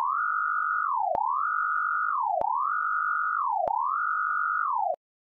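Electronic sine-wave tone repeating a rise, a short hold and a fall, four times about a second and a quarter apart. There is a click at each restart, and it cuts off abruptly about five seconds in.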